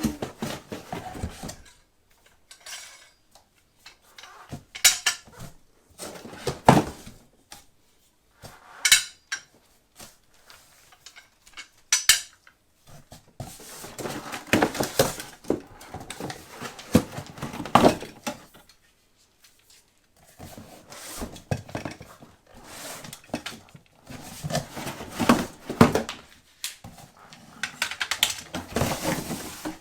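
Steel parts of a mitre saw stand clanking and knocking together as they are unpacked and handled: a scattered series of metallic clinks and knocks with short quiet gaps between them.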